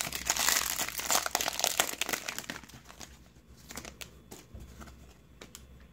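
Crinkly wrapper of a Topps WWE SummerSlam 2019 trading card pack being torn open and crumpled by hand. Dense crinkling for the first two and a half seconds, then it dies down to a few soft rustles and ticks.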